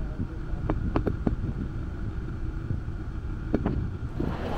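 Steady low rumble of background noise, with a few light clicks about a second in and again near the end.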